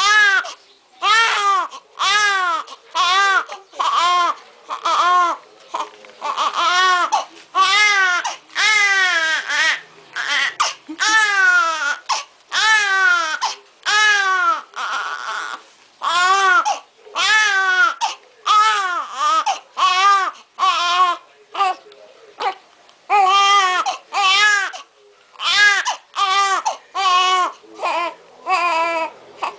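Newborn baby crying in a steady run of short wails, about one a second, each rising and then falling in pitch.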